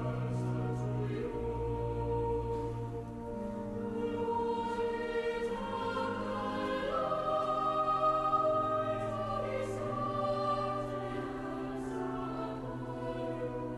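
Slow choral music: a choir singing long held chords that change every second or two.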